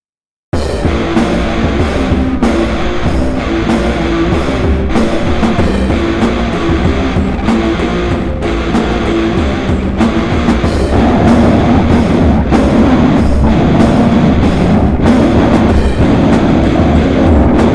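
Extreme metal (slam/sludge) with distorted guitars and drums, starting abruptly after about half a second of silence and continuing loud and dense.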